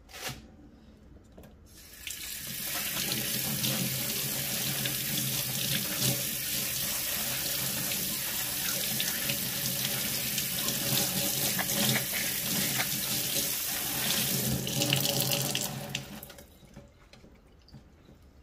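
Kitchen tap running into a stainless steel sink, the water splashing over gloved hands being rinsed. It starts about two seconds in and stops a couple of seconds before the end.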